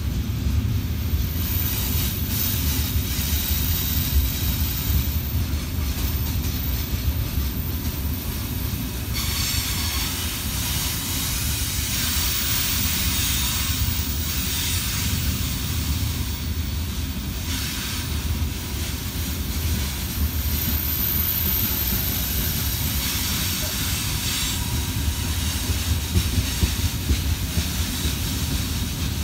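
Loaded coal wagons of a freight train rolling past: a steady low rumble of wheels on rails, with a higher hiss that comes and goes in the middle stretch.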